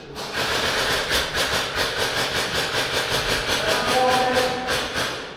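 Airsoft gun firing a sustained full-auto stream, a fast even clatter of shots several a second.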